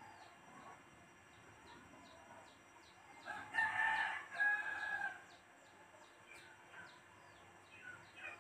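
A rooster crowing once, starting about three seconds in and lasting nearly two seconds. Faint short high chirps repeat a few times a second throughout.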